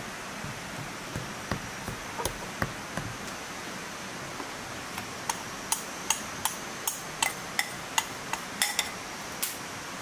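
A metal spoon stirring flour in a ceramic bowl with a few soft clinks, then from about five seconds in a run of sharp, bright clinks, two or three a second, as the spoon scrapes and taps flour out of the bowl onto a metal tray. A steady hiss lies under it throughout.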